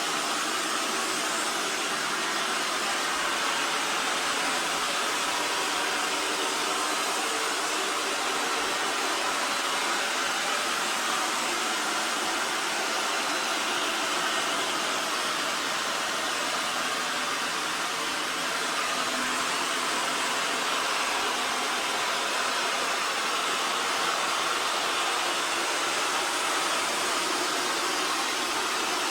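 EXTRAVIS V5 PRO robot vacuum running while cleaning: a steady hiss from its suction fan with a faint whine, holding even throughout.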